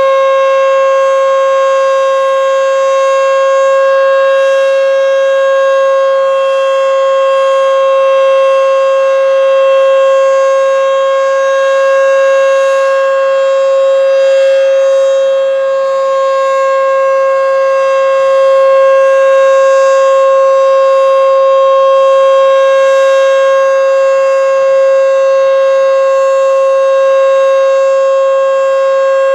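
Federal Signal Model 5 outdoor warning siren sounding loud at full speed, holding one steady pitch with no rise or fall.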